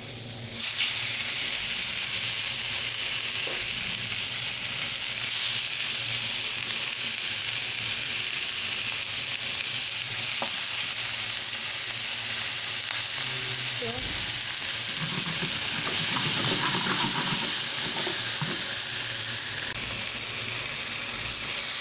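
Marinated turkey pieces sizzling as they sauté in a little olive oil in a hot pan. The sizzle starts abruptly under a second in and then holds steady.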